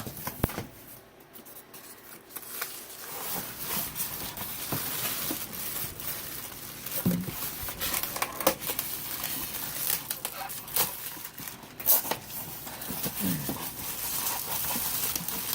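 Unboxing sounds: packaging crinkling, rustling and tearing, with scattered sharp clicks and knocks, starting a couple of seconds in.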